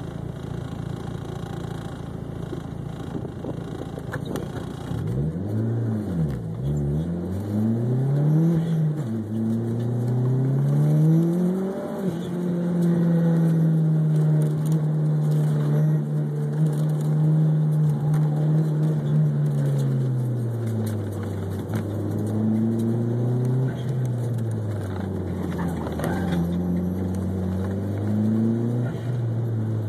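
Mitsubishi 4G63 inline-four engine of a DSM car heard from inside the cabin: idling steadily for about five seconds, then revving hard on launch with two quick upshifts, climbing again, holding a steady pitch for several seconds, and then dropping and picking up again as the throttle comes off and on through the course.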